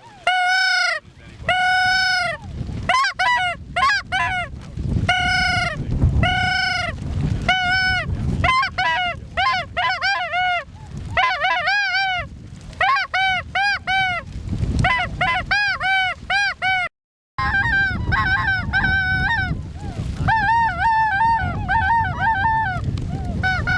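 Snow geese calling: a steady run of high-pitched honks, one after another, over the low rumble of wind on the microphone. The sound drops out for a moment about seventeen seconds in.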